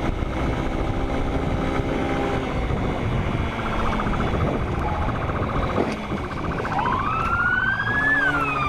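Motorcycle engine running under way, with road and wind noise. About seven seconds in, a police siren starts: one wail rising in pitch, then falling.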